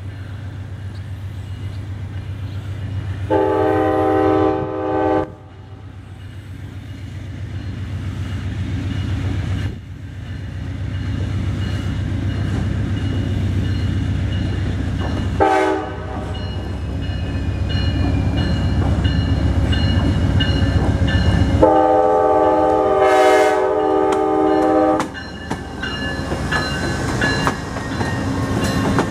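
Diesel-hauled passenger train approaching a road crossing, its locomotive air horn sounding a long blast about three seconds in, a short one around the middle and another long one a few seconds later. A low engine and rail rumble grows louder throughout. Near the end the bilevel passenger cars roll past with wheels clicking over the rail joints.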